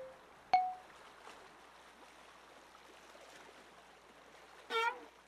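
Cartoon pond soundscape: faint steady trickling-water ambience, a single sharp plink with a short ringing tone about half a second in, and a brief wavering call near the end.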